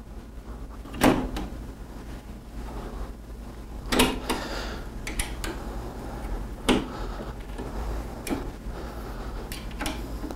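Sharp metal knocks and clicks, four louder ones a few seconds apart, from a wrench and the metal roof rack parts as a bolt on the rack is tightened.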